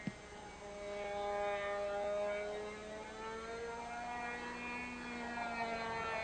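Small model float plane's engine buzzing in flight overhead, a steady whine that drifts slowly up and down in pitch as the plane circles. A brief click right at the start.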